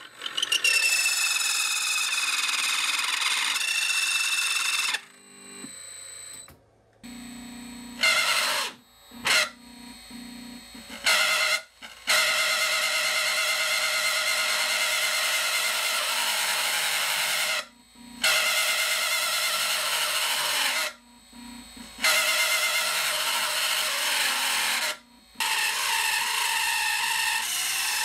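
High-speed CNC router spindle driving a countersink bit into a metal plate, the cut giving a loud, high-pitched ringing in stretches of several seconds, broken by short quieter gaps with a lower hum. The spindle has little torque at the low speed the countersink needs, so it is being fed by hand to keep it from stalling.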